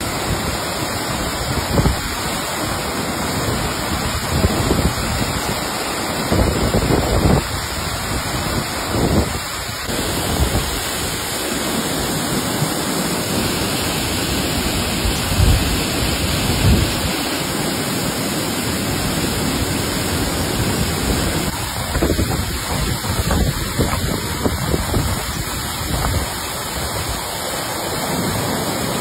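Old Courtallam waterfall in heavy flood: a steady rushing of water pouring down the rock face into the bathing pool, with uneven low rumbling surges.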